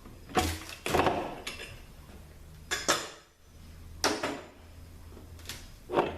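Metal clanks and knocks as a THM-350 transmission's front pump is worked free of the case with a puller and lifted out, about six sharp separate strikes at irregular spacing.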